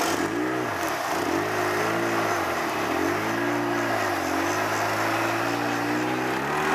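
Polaris RZR 800 side-by-side's twin-cylinder engine pulling under throttle while driving, its revs dipping and climbing again several times, then holding steadier before rising near the end.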